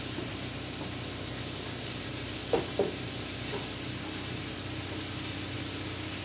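Diced bell peppers and onion sizzling in hot vegetable oil in a skillet, a steady frying hiss. Two sharp knocks come a little past two and a half seconds in, with a fainter one soon after.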